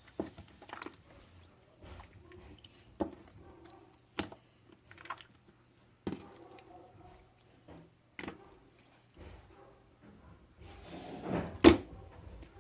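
Slime being squeezed and pressed by hand, giving irregular sharp pops and clicks with soft squishing between them; the loudest pop comes near the end.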